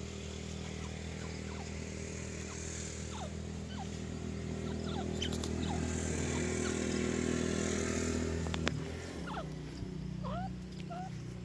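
A motor engine runs steadily as a low hum, then changes after a sharp click about nine seconds in. Short, sparse bird chirps sound over it, a few more near the end.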